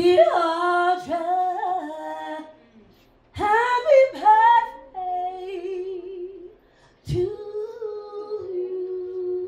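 A woman singing solo with no accompaniment, in three long wordless phrases with a wavering vibrato; the last note is held steady from about three-quarters of the way in.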